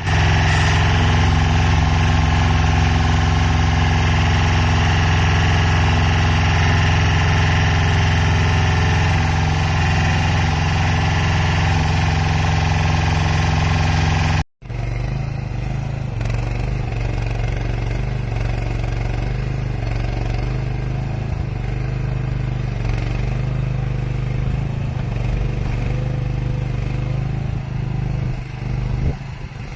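Dig-Boy skid steer loader's engine running steadily. About halfway through it breaks off for an instant, then goes on quieter and at a lower, different pitch.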